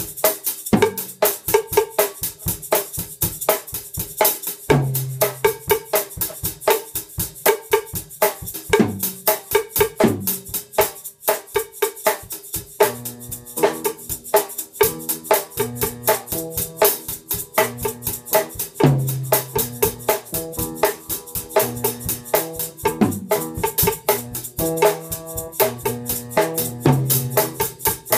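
Bossa nova groove on a drum kit, with a second player clicking out a wood-block pattern with sticks, over a backing track with bass and chords. The quick, even strokes run throughout, and low bass notes and chords come through more clearly about halfway through.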